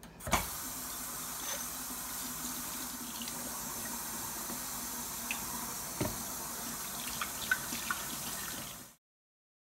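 Kitchen tap running steadily into a sink while paint-sprayer gun parts are rinsed under the stream. There is a knock as it starts and a few light clicks, and the sound cuts off abruptly about a second before the end.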